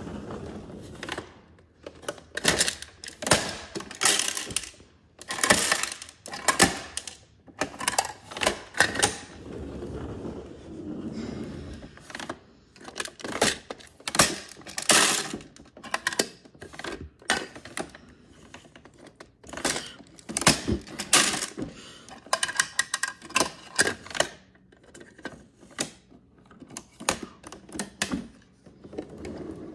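Small plastic toy garbage bins clattering and knocking as they are set down on the floor and handled by a toy garbage truck's lifting arm, in quick clusters of clicks and thunks. A low rumble of the toy truck's plastic wheels rolling on the wooden floor comes at the start and again about ten seconds in.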